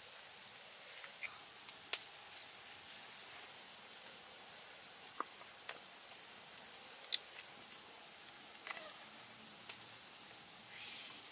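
Several sharp clicks and taps of small seasoning bottles and a plastic tub being handled while raw pork cubes are seasoned, over a steady faint hiss, with a brief rustle near the end.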